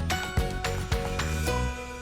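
Background music with a steady beat and bright pitched notes; the beat stops near the end, leaving a held chord fading out.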